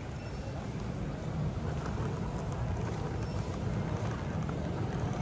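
Steady low rumble of a large airport terminal's background noise, with a fainter hiss above it; the level rises slightly about a second and a half in.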